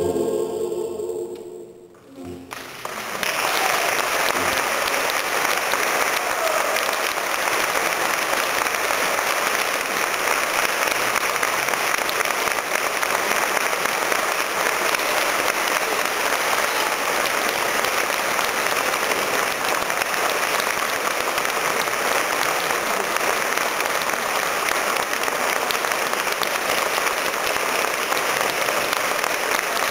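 The choir and string orchestra's final held chord fades away, then an audience breaks into steady applause about two and a half seconds in, marking the end of the piece.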